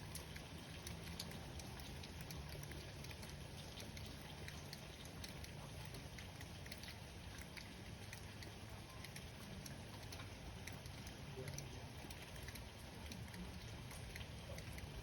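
Light rain falling during a thunderstorm, a steady faint patter of individual drops ticking on surfaces, with a low hum underneath.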